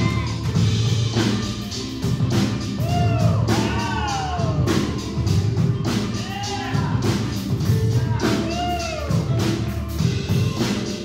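Music over loudspeakers with a steady drum beat and repeated arching, gliding notes.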